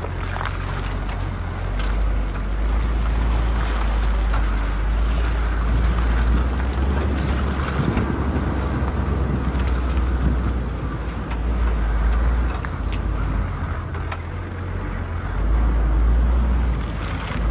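Off-road vehicle driving over a rough dirt track: a steady low rumble of engine and tyres, with scattered knocks and rattles from the bumps.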